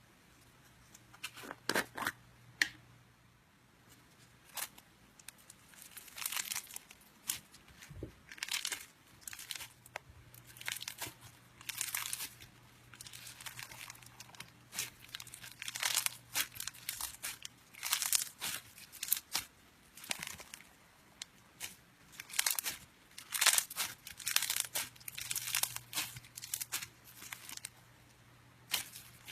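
Slime being squeezed and stretched by hand, making irregular crackling, squelching bursts, some short and some drawn out over a second or so.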